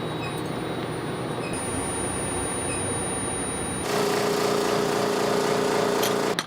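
Steady machine noise; about four seconds in, a louder motor hum with a steady pitch joins it.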